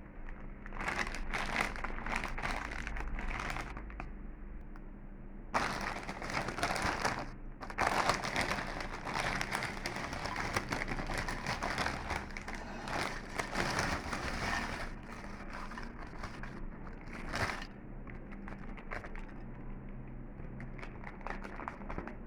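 Crinkling of a Pehuamar classic potato chip bag as it is handled, in uneven bursts. The longest stretch runs through the middle, and there is a short sharp burst later, followed by fainter crackles.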